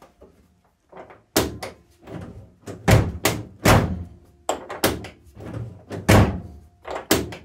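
Triumph TR7 boot lid being shut and worked against its newly fitted lock and striker plate: a series of sharp thunks and clunks, about six loud ones with smaller knocks between, as the latch is tested.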